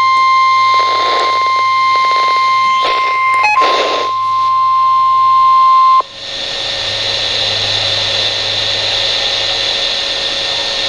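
NOAA Weather Radio's 1050 Hz warning alarm tone: one steady high beep held for about six seconds, with several bursts of static over it, then cutting off suddenly. Steady radio hiss follows. The tone announces a severe thunderstorm warning broadcast.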